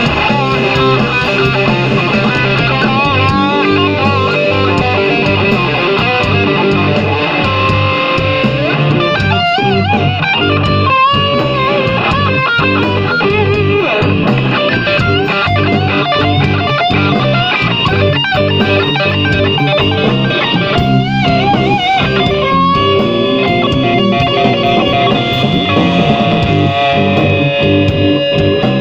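A live blues band plays an instrumental passage. Electric guitar leads with wavering, bent notes over bass and the rest of the band.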